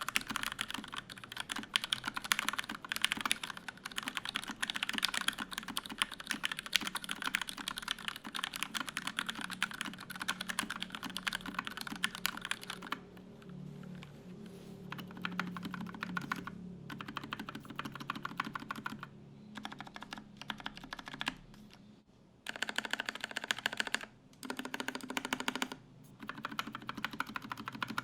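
Typing on a Kemove Snowfox 60% mechanical keyboard with lubed Gateron Yellow linear switches and PBT keycaps. Fast, continuous keystrokes for nearly half the time, then sparser and quieter keystrokes, then three short bursts of rapid typing near the end.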